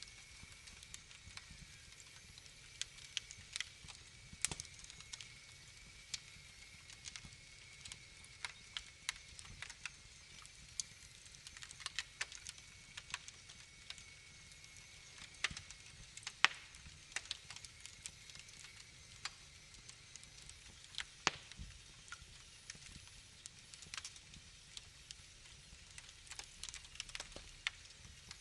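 Wood fire crackling in a fireplace: irregular sharp pops and snaps, scattered through, over a faint steady hiss.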